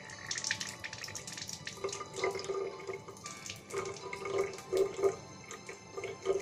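Salt water squeezed from a plastic bag into a nostril during a nasal rinse: a hiss of water for a little over a second near the start, then a run of short, irregular wet splashes.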